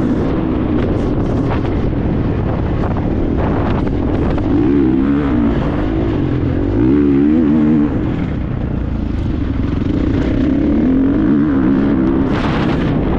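Motocross dirt bike engine revving up and falling back again and again with the throttle while riding a lap of a dirt track. The motorcycle is heard close up from a camera mounted on it, with a burst of rushing noise near the end.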